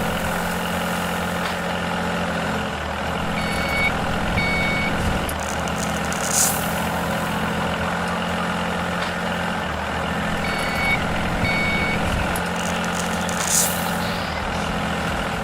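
Heavy vehicle engine running steadily, with a reversing alarm giving two pairs of short beeps and a brief hiss of air twice.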